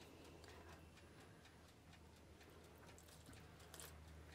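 Near silence: room tone with a faint low hum and a few faint ticks.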